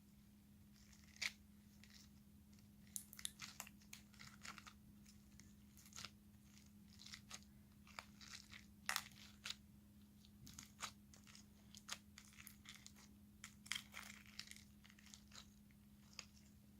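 Stationery-store slime being squished and stretched by hand, giving faint, irregular crackles and clicks, over a steady low hum.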